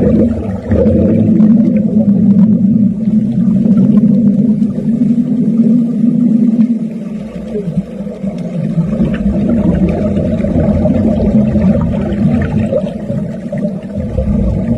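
Underwater wet-welding arc heard through the water: a loud, steady, low humming drone.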